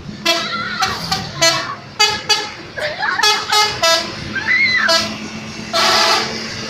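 A bus's telolet musical air horn sounding a quick string of about ten short toots, with a longer blast near the end, over the low hum of the bus engine. Voices shout around the middle.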